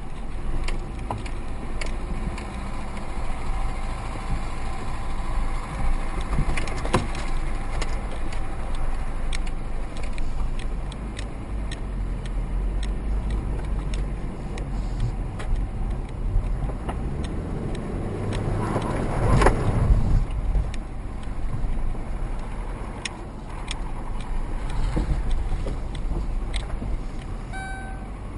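Road vehicle noise: a steady low rumble of a car on the move, with scattered knocks and a loud rushing swell about two-thirds of the way through. Near the end a series of evenly spaced electronic beeps begins.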